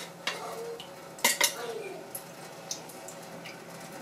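Clear plastic filter cartridge knocking and clicking in the hands as a foam insert is worked into it, with scattered light taps and a couple of short squeaks.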